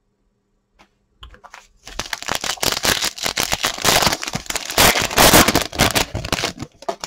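Topps Chrome baseball card pack wrapper crinkling as it is torn open and handled. It starts with a few small rustles and turns into dense, loud crackling from about two seconds in until just before the end.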